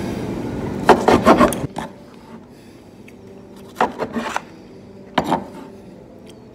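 Kitchen knife sawing through toast-bread sandwiches down onto a wooden cutting board, a rasping scrape of bread and board. The strokes come in three short bursts: about a second in, around four seconds in, and just after five seconds.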